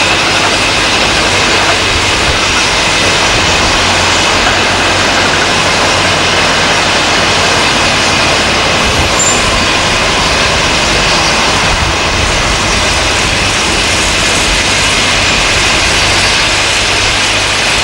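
Heavy diesel engines of a Liebherr R962 crawler excavator and a MAN dump truck running together in a loud, steady drone, as the truck pulls up beside the excavator for loading.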